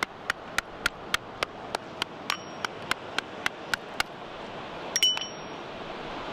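Geological hammer tapping rapidly on the edge of a dark layered rock slab, about three to four sharp metal-on-stone taps a second, some with a short ring, splitting the slab along its layers to expose graptolite fossils. The taps stop after about four seconds and one louder ringing clink follows about a second later.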